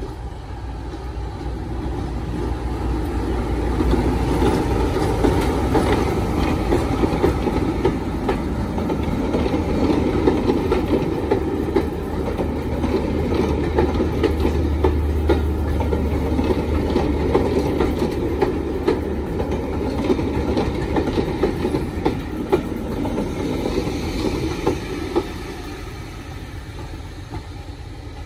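A heritage diesel locomotive and its coaches pass slowly, the engine running with a low hum under the rumble and clicking of the wheels over rail joints. The sound builds over the first few seconds, holds, then fades near the end as the last coach moves away.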